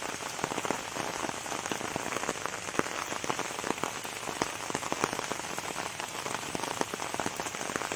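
Steady rain falling, with many separate drops striking close by over a constant hiss.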